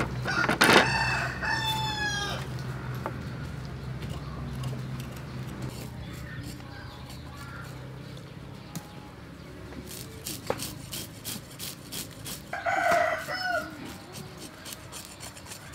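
A rooster crows once, a long call starting about half a second in, and a chicken calls again near the end. In the second half a knife scrapes scales off a large fish in a run of quick, sharp scraping strokes.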